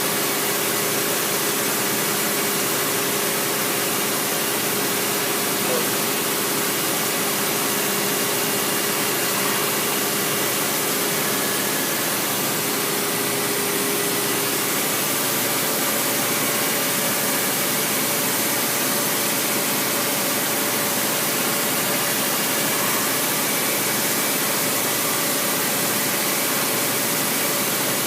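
Doosan Puma 240C CNC turning center running steadily: an even mechanical hiss and hum, with a faint tone that shifts to a slightly higher pitch about halfway through.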